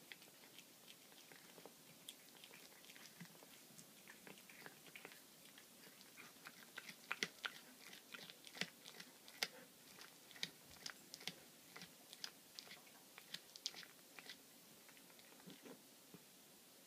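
Domestic cat chewing a baby rabbit carcass, crunching through its bones. Irregular sharp crunches and clicks, sparse at first, come thickest and loudest through the middle, then thin out near the end.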